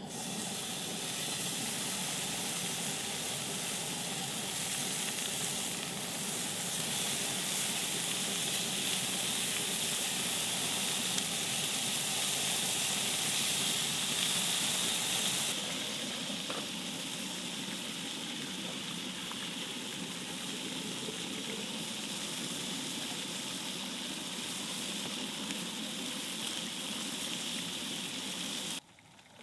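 Food sizzling as it fries in a pan, a steady hiss that drops a little in level about halfway through and cuts off shortly before the end.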